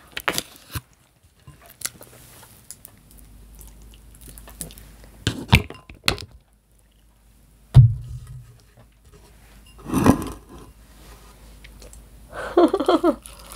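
Eating and handling noises at a wooden cutting board: a plastic squeeze bottle of white dressing is squeezed onto a chicken wing, with small clicks, then set down with a dull thunk about eight seconds in, the loudest sound. Near the end come a bite into the wing and a brief murmur of voice.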